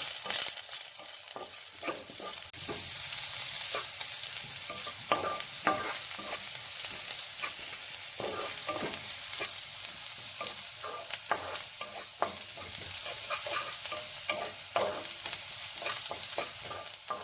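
Chopped carrot, cabbage, spring onion stalks, ginger and garlic sizzling in hot oil in a pan while being stir-fried. The stirring utensil scrapes and knocks against the pan in irregular strokes over a steady frying hiss.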